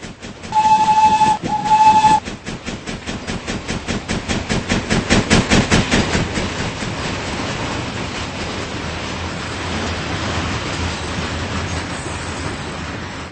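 Steam locomotive whistle blowing two short blasts, followed by fast, rhythmic chuffing that grows louder, then a steady rumble of the train rolling past.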